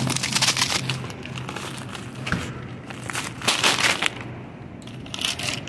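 Rustling and clattering bursts of items being handled, over faint background music.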